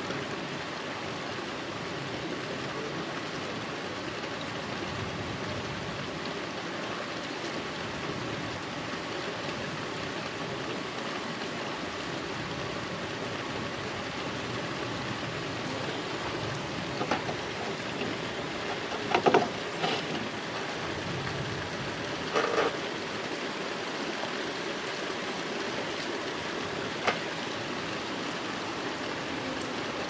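Steady rain falling, an even hiss. A few brief, louder sounds stand out about two-thirds of the way through.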